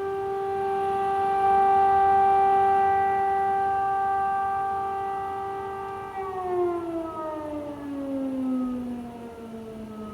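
Air raid siren sounding a steady high tone, then winding down in pitch from about six seconds in.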